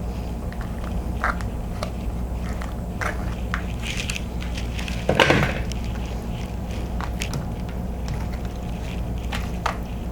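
King crab and seafood boil being handled and eaten: scattered short clicks, cracks and mouth sounds, the loudest about five seconds in, over a steady low hum.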